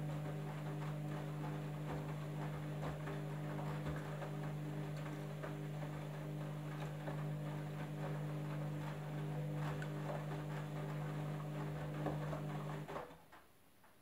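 Candy front-loading washing machine turning its drum to tumble the laundry: a steady motor hum with light knocks and patter from the clothes falling inside. The motor and drum stop abruptly about a second before the end.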